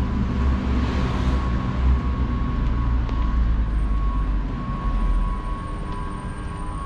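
Low rumble of passing traffic that dies away about five and a half seconds in.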